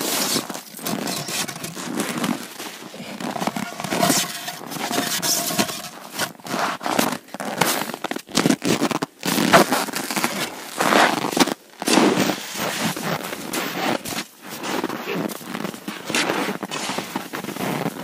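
Packed snow crunching and scraping as it is dug away by gloved hands, in irregular crunches and scrapes.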